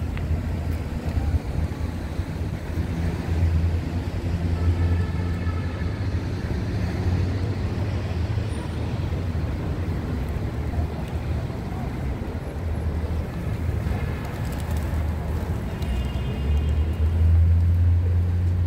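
Steady low rumble of road traffic, swelling louder near the end.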